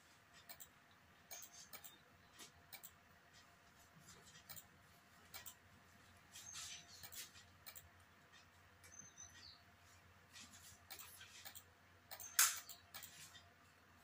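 Faint, irregular clicks, roughly one a second with the loudest near the end, from moves being played quickly in an online bullet chess game on a computer.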